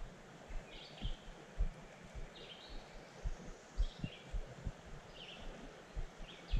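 A bird calls over and over, a short high chirp repeated about every second or so, over a faint steady hiss of moving river water. Irregular low, muffled thumps come and go underneath and are the loudest sounds.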